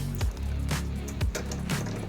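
Background music with a steady beat, about two beats a second over a sustained bass line.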